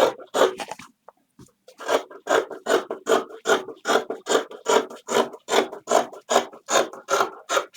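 Scissors cutting through fabric in a steady run of snips, about three a second, after a short pause about a second in.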